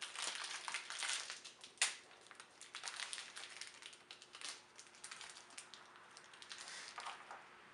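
Gloved hands handling small metal hydraulic-pump valve parts: faint rustling with irregular light clicks, and one sharper click about two seconds in.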